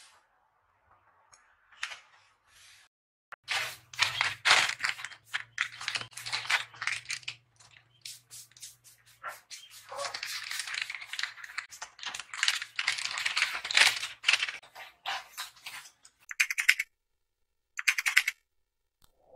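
Paper and plastic mail packaging rustling and crinkling as it is handled: dense, irregular crackle with brief pauses, then two short bursts near the end. A faint steady hum sits underneath.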